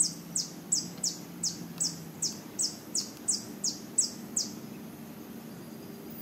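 A bird calling: a run of about a dozen short, high notes, each falling in pitch, about three a second, stopping about four and a half seconds in.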